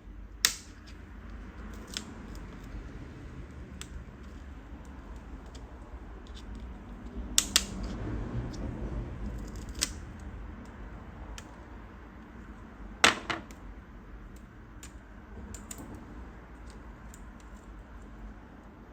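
Plastic laptop screen bezel being pried off with a plastic pry tool: scattered sharp clicks and snaps of plastic, a few seconds apart, with lighter ticks between.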